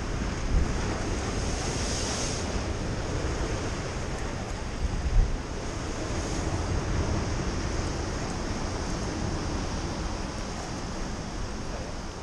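Sea surf breaking and washing over rocks, with wind rumbling on the microphone and a couple of short low gusts.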